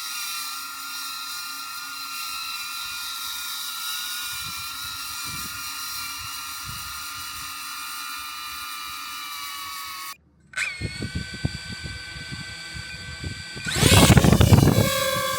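DJI drone's propellers and motors whining steadily, several pitches held level. About ten seconds in the sound cuts out briefly and a louder drone takes over, with a loud rush of noise near the end.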